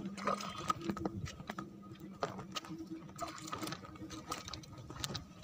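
A small hooked mangrove jack splashing at the water's surface and flopping as it is drawn out onto the muddy bank, heard as irregular sharp clicks and ticks with some light water sound.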